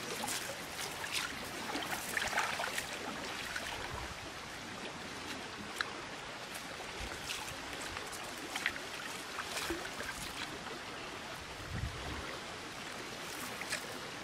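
Shallow water sloshing and dripping as a wet cast net is hauled in through the water and gathered up, with scattered small splashes.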